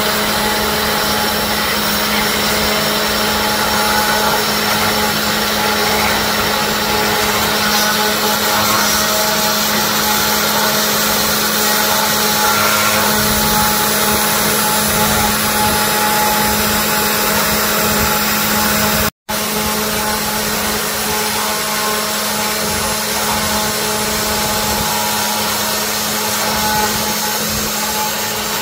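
CNC router spindle running steadily while its bit carves into wood: a constant motor hum and whine over the hiss of the cut. The sound cuts out for an instant about two-thirds of the way through, then resumes unchanged.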